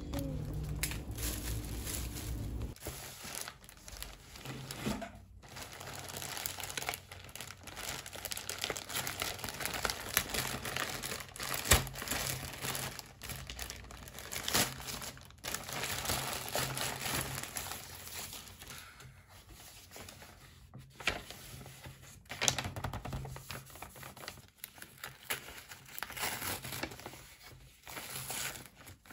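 Crinkling and tearing of a plastic courier mailer bag being pulled open by hand, then rustling of a brown kraft paper envelope, in irregular crackly bursts with sharp snaps.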